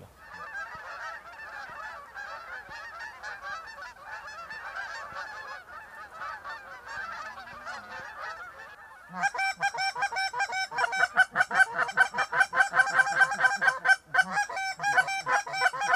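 A large flock of Canada geese honking, a dense overlapping chatter at first. About nine seconds in it jumps to louder, closer honks in quick succession.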